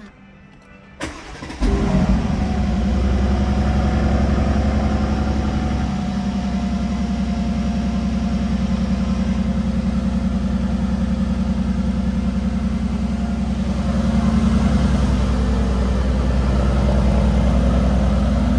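Aston Martin Vantage engine being started: a brief crank about a second in, then it catches and settles into a steady idle that steps down a little about six seconds in.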